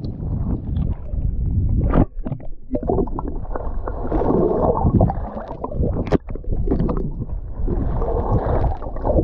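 Sea water sloshing and gurgling around a waterproof camera as it dips in and out of the water, in choppy, irregular surges with brief drop-outs.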